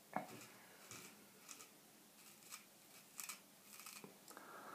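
Shavette straight razor cutting through beard hair in a series of short, faint scraping strokes.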